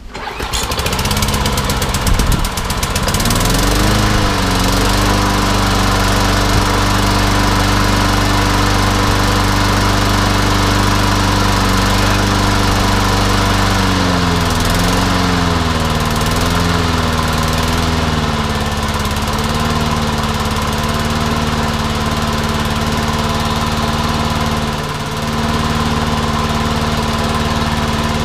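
Hayter Ranger 53 lawnmower's petrol engine catching on the pull cord and running steadily. The revs climb over the first few seconds and waver up and down about halfway through. This is a first run after a service, on a mower that had stood unused for a long time as a non-runner.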